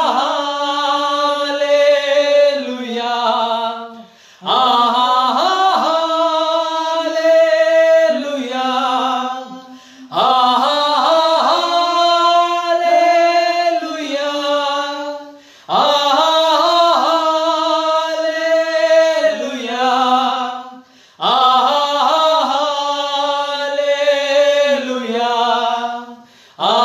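Men's voices singing a worship song together without instruments, in long drawn-out phrases with a short breath roughly every five seconds.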